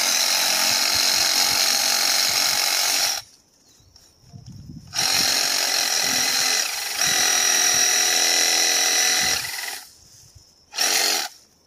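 Abeden HY-7020 cordless reciprocating saw, a Chinese-made saw running on a Makita battery, cutting through a dry branch with a steady motor whine and blade rasp. It runs in three trigger pulls: about three and a half seconds, then about five seconds with a brief dip partway through, then a short blip near the end.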